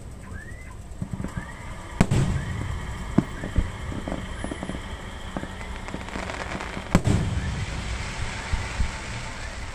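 Aerial fireworks display: two loud shell bursts, about two seconds in and about seven seconds in, with smaller pops between and after.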